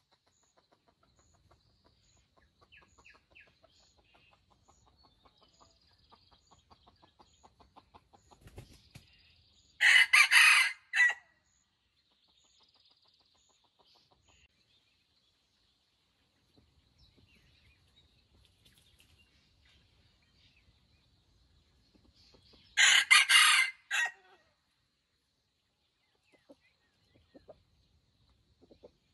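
Junglefowl rooster crowing twice, each a short broken crow of about a second, some thirteen seconds apart. Faint clucks and chirps come in between.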